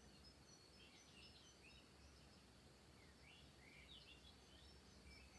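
Near silence: quiet room tone with faint, repeated short bird chirps in the background.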